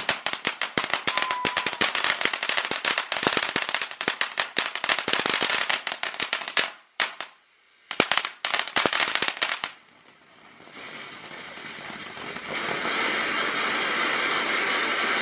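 Fireworks crackling: a dense, rapid run of sharp pops for about ten seconds, broken once by a second of silence, then giving way to a steady hiss.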